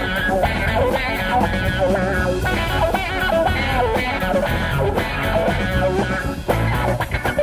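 Gospel rock band playing an instrumental passage between sung lines: a guitar carries the melody over bass and a steady drum beat.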